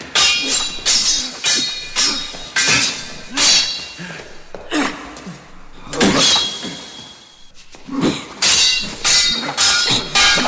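Swords clashing in a duel: a rapid series of sharp metallic strikes, more than a dozen, each ringing briefly, with a short lull about seven seconds in.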